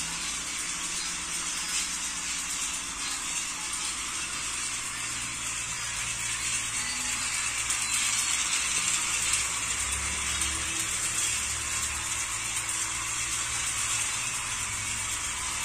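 Many small battery-powered toy trains running at once on plastic tracks, making a steady, dense mechanical whir and clatter.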